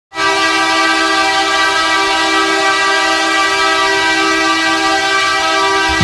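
Ice hockey goal horn sounding one long, steady, loud blast of several tones together.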